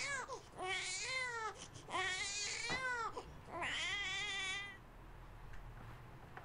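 A high-pitched, baby-like crying wail in four rising-and-falling bouts, which stops a little over two thirds of the way through.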